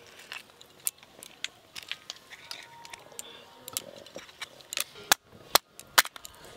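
Small clicks and cracks of crab shells being pried apart by hand as the roe is scraped out. Near the end come a few sharp knocks as a crab is struck with a knife on a wooden board.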